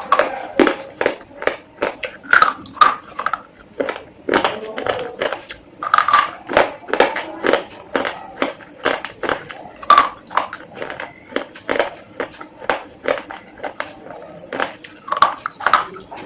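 Slate pencils being bitten and chewed, a rapid run of sharp, brittle crunches, about two to three a second.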